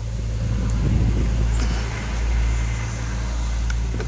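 Phantom boat's engine running at a steady idle: a low, even drone that swells slightly in level twice.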